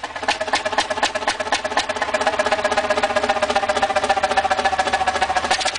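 Large old multi-cylinder stationary engine with a big flywheel running, its exhaust beating in a rapid, even rhythm of knocks. A steady ringing tone joins the beat about two seconds in.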